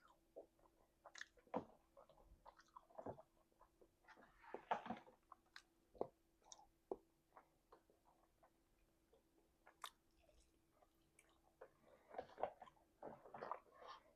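Close, wet, open-mouthed chewing with irregular smacks and squelches, denser about five seconds in and again near the end, over a faint steady hum.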